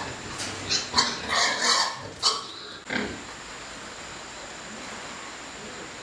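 Domestic pigs squealing and grunting in a rapid series of short calls, which stop about three seconds in.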